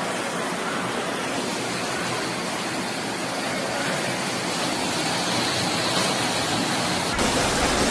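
Steady rushing roar of a heavy rainstorm, with an abrupt change in the noise about seven seconds in.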